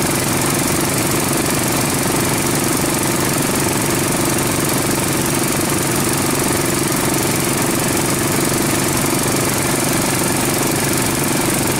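Gold dredge's engine running steadily, with water rushing over the sluice mat.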